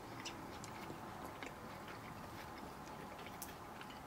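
Faint chewing and mouth sounds of two people eating, with scattered soft clicks.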